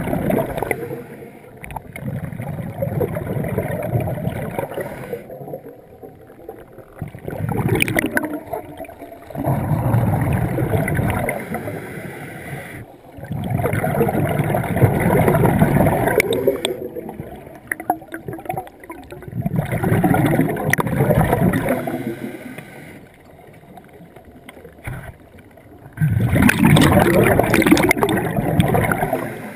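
Scuba regulator breathing underwater: exhaled bubbles gurgle in bursts of a few seconds each, repeating about every five seconds like breaths, with quieter pauses between.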